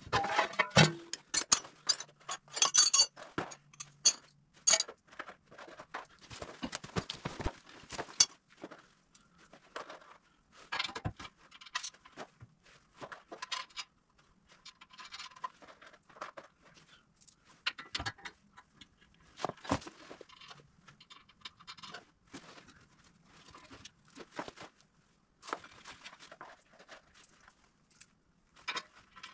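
Metal winch-bumper mounting brackets and bolts clinking, rattling and scraping as they are handled and fitted to the front of a UTV. The clatter is dense for the first several seconds, then comes in sparser clinks.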